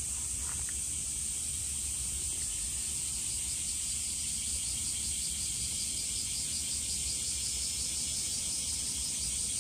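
Insects chirping steadily: a continuous high trill, joined about three seconds in by a second, evenly pulsing chirp.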